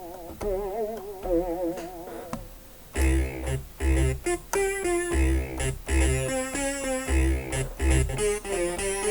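Software synthesizer presets played live from a MIDI keyboard. A few held notes with a wide vibrato come first, then from about three seconds in a bass line of short, punchy low notes with higher notes played over it.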